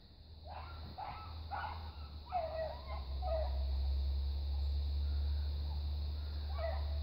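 Beagles giving short yelping barks, several in quick succession over the first three seconds and one more near the end.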